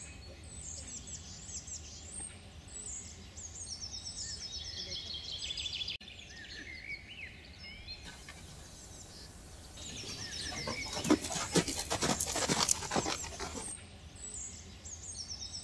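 Songbirds singing, with repeated high chirps and short trilled phrases over a low steady outdoor rumble. For about three seconds past the middle comes a run of sharp, irregular knocks.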